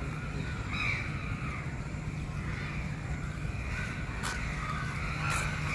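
Birds calling several times in short, harsh calls, over a steady low rumble.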